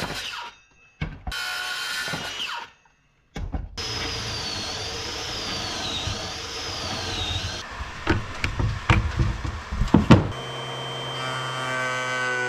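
Woodworking power tools in quick succession: a cordless drill running steadily for a few seconds, a run of sharp knocks, then a steady hum with a clear pitch from about ten seconds in.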